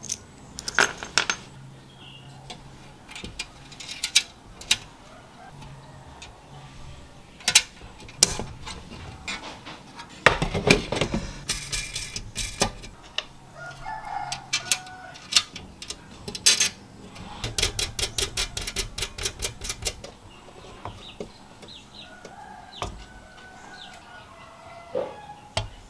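Small aluminium chassis parts and the riveted aluminium frame being handled and fitted: scattered metallic clicks and clinks, a busier patch of knocking and rubbing around the middle, and a quick run of about six clicks a second a little past the middle.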